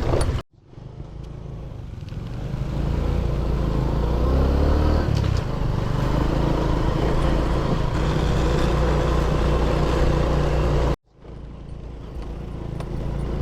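Motorbike engine running while riding, with heavy wind rumble on the microphone; the engine pitch shifts up and down. The sound cuts off abruptly twice, about half a second in and near the end, and fades back in each time.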